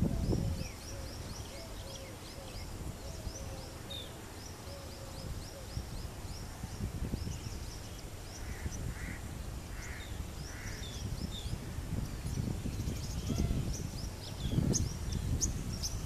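Small birds chirping rapidly and high throughout, while a crow caws four times in the middle. Low wind rumble on the microphone grows gustier near the end.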